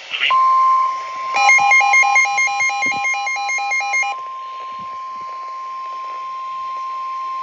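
NOAA Weather Radio warning alarm tone: a single steady tone of about 1 kHz held for several seconds, signalling that a warning such as a tornado warning follows. From about a second and a half in to about four seconds, a rapidly alternating electronic warble in several pitches plays over it.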